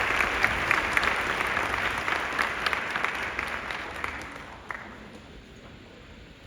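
Audience applauding, the clapping dying away about four seconds in to a last few scattered claps.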